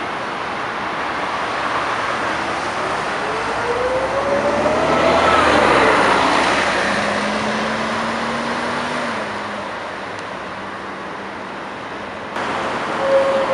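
Single-deck Scania L113CRL city bus with a Scania DSC11 diesel engine driving past at close range: the sound swells as it approaches, with an engine and transmission whine rising in pitch as it accelerates, then fades as the bus pulls away down the road.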